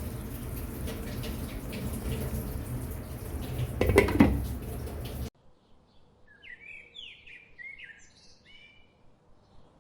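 Water running from a tap into a sink, with a brief louder burst about four seconds in. It then cuts off abruptly, and a bird sings a short run of chirps over quiet background.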